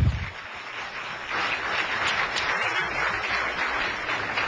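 Audience applauding, building about a second in and holding steady. A brief low thump opens it.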